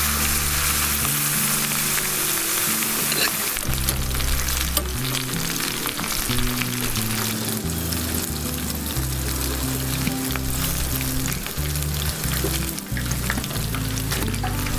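Chicken wings deep-frying in hot oil in a wok: a steady crackling sizzle with many small pops. Background music with a low, stepping melody plays alongside.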